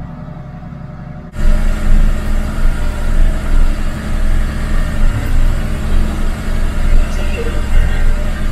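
MAN expedition truck's diesel engine pulling steadily up a steep lane, held in second gear. About a second in, the sound jumps suddenly much louder and fuller as the audio switches to a different recording of the truck.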